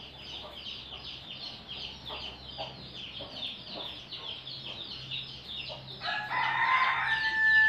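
A rooster crowing near the end, a held call that is the loudest sound here. Under it runs a quieter fast, even series of short high ticks, several a second.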